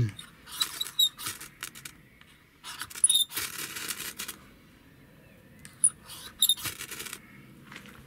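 Saw spine of a Ganzo multitool scraped hard down a ferro rod, rasping in three bursts of strokes with short pauses between. It is throwing sparks onto wood shavings to light them.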